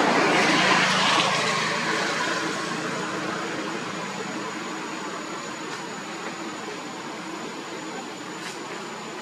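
Rushing noise of a passing vehicle, loudest about a second in and then fading away steadily.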